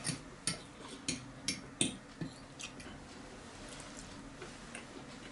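Metal fork clicking and scraping against a ceramic plate while meat is pulled off a chicken leg: about seven sharp, irregular clicks over the first couple of seconds, then only faint sounds.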